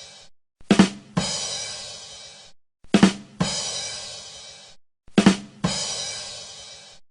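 Drum-kit rimshot sting, the "ba-dum-tss" played after a bad joke: two quick drum hits followed by a cymbal that rings out and fades. It comes three times, about every two seconds.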